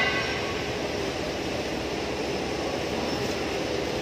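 A steady machine-like rumble that holds level throughout, with no distinct knocks or changes.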